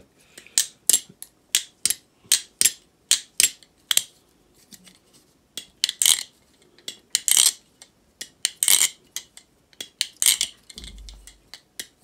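Balisong (butterfly knife) trainers being flipped: an irregular run of sharp metal clicks and clacks, about two or three a second, as the handles swing around the pivots and slap closed. There are a few longer clattering rattles in the middle and a dull thump near the end.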